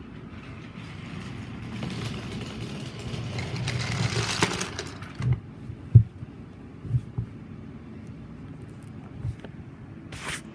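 Wooden toy train rolling along wooden track with a rising rumble, then knocking into a line of parked wooden trains: a few hollow wooden knocks, the loudest about six seconds in. A short sharp noise comes near the end.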